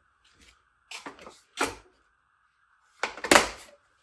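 A few short clatters and knocks of hand tools being handled, the loudest a cluster near the end. A faint steady high hum runs underneath.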